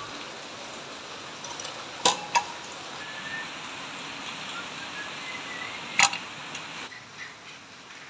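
Sharp knocks of metal parts as the washing machine's spin-dryer motor is worked loose and lifted out: two close together about two seconds in and one about six seconds in, over a steady hiss.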